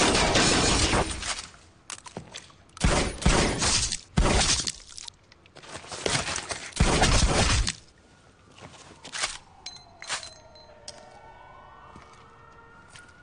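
Three long volleys of gunfire with car glass shattering, in the first eight seconds. Then a few scattered clinks, and a distant siren wails slowly down and up.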